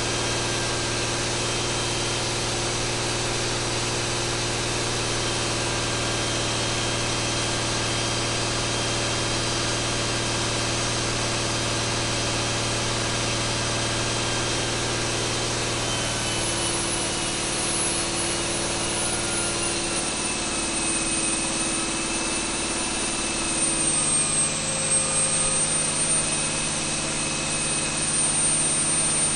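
John Deere 8.1L inline-six marine diesel running hard under full load on an engine dyno at about 2,300 rpm, with a steady high whine over the engine note. About halfway through the pitch shifts and drops slightly as the load comes off and the speed eases to about 2,150 rpm.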